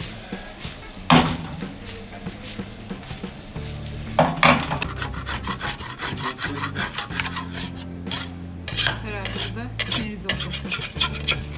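Fried rice being tossed in a steel pan, then a metal spoon scraping and clinking against the pan as the rice is served out, with sharp metal clanks about a second in and again about four seconds in.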